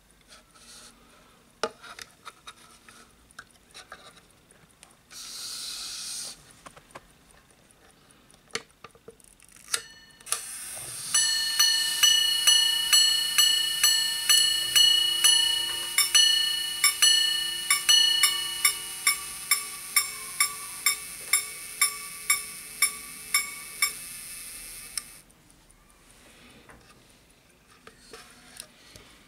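Gold pocket-watch minute repeater resting on a wooden sounding box, striking the time on its gongs: after a few handling clicks, about eleven seconds in a run of ringing strokes begins, slower strokes first and then a quicker even run, over a steady faint whir, stopping about thirteen seconds later.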